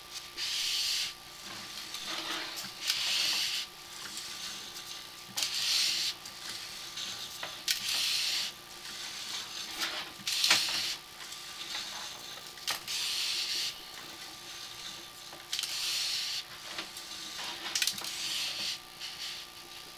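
Sewer inspection camera's push cable being pulled back by hand in strokes: a rough scraping hiss about every two seconds, with a few sharp clicks and a faint steady electronic tone underneath.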